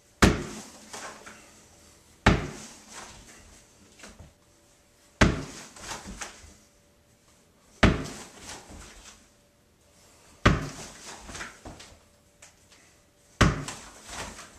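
A tennis ball thrown down and bouncing on a hardwood floor six times, a sharp knock every two to three seconds. Each bounce is followed by softer knocks and rustling of clothing as a pistol is drawn from a concealed holster.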